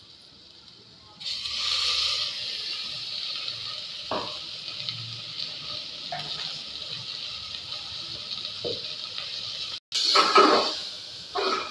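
Banda and onion sizzling in hot oil in an aluminium pressure cooker as ground masala paste is stirred in. The sizzle starts up suddenly about a second in, with a metal spatula scraping against the pot now and then. The sound cuts out briefly near the end and comes back with a few louder scrapes.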